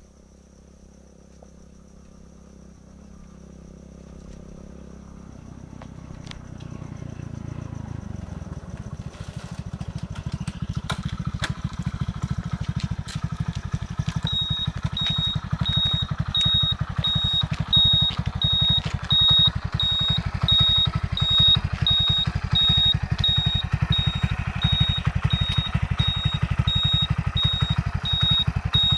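A Hero motorcycle's small single-cylinder engine idling. It grows louder over the first ten seconds or so, then runs with a steady rapid pulse. From about halfway through, a high-pitched beep repeats about every two-thirds of a second.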